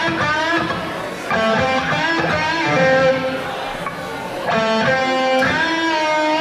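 Live blues-rock band playing: electric guitar and bass, with a pitched lead line bending up and down over them in short phrases.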